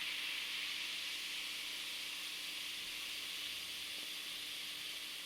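Carbonated water fizzing: a steady hiss of fine bubbles popping, slowly getting a little quieter.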